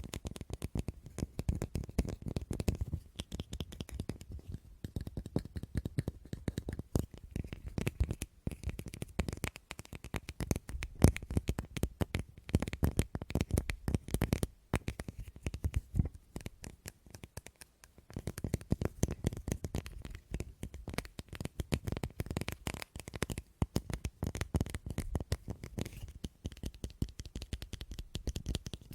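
Fingers tapping rapidly and continuously on a hard object in quick, irregular patters, with a pause of about two seconds past the middle before the tapping resumes.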